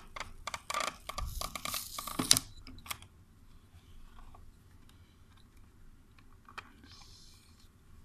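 Handling noise from a plastic VR headset and a small FPV receiver dongle: dense clicks and rustling for the first two seconds or so, ending in a sharp click, then scattered faint clicks and a brief rustle near the end.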